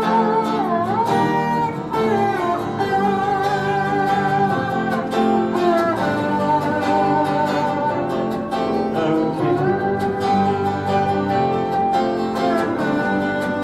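Instrumental break of a folk song: strummed acoustic guitar under a sustained lead melody line that slides between notes.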